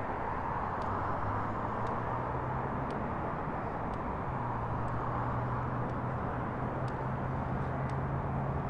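Engine of heavy tree-removal machinery running steadily, with a low hum that steps up in pitch about a second in and again about four seconds in.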